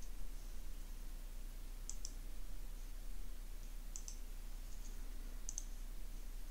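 Computer mouse buttons clicking: a few sharp clicks, mostly in quick pairs of press and release, about every second and a half, over a steady low electrical hum.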